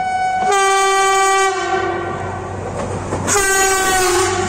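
Diesel commuter train's two-tone horn blowing twice as the train passes close, loud. The first blast swells about half a second in and then holds more quietly, sinking slightly in pitch. The second, startling blast comes about three seconds in and drops in pitch as the train goes by, over the low rumble of the passing train.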